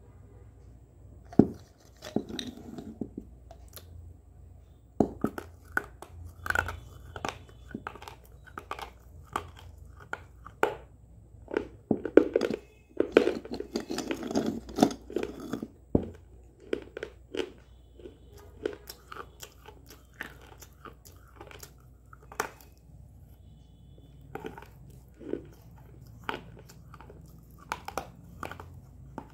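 Close-up biting and chewing of crunchy slate pencils: irregular sharp snaps and crunches, thickest in a run of steady chewing from about twelve to sixteen seconds in.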